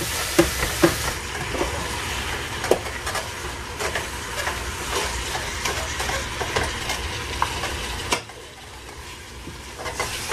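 Ground beef sizzling in a hot stainless-steel pan as it browns with onions and peppers, while a wooden spoon stirs and scrapes it, knocking against the pan many times. The sizzle drops off suddenly about eight seconds in and picks up again near the end.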